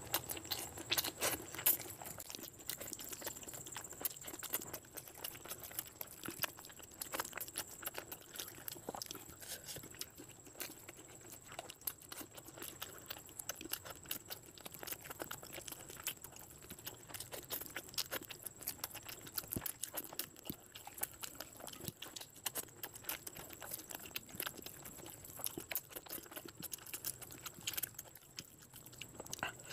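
Close-miked hand-eating sounds: chewing, and curry-soaked rice and whole chicken being squished and torn apart by hand. It makes a dense, irregular run of small clicks and smacks.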